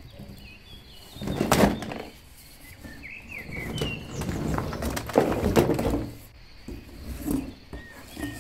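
Plastic toy dinosaurs and animals tumbling out of a tipped cardboard box onto a rug, with several knocks and clatters of the toys and the box: about a second and a half in, a run of them from about 4 to 6 seconds, and one more near the end.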